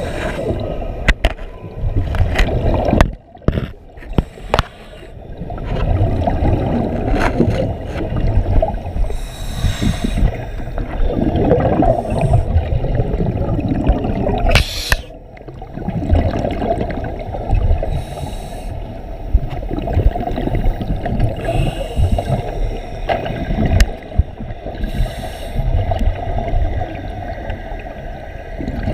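Muffled, churning rush of water with gurgling bubbles, heard from underwater through an action-camera housing. The noise dips briefly about three seconds in and again about fifteen seconds in.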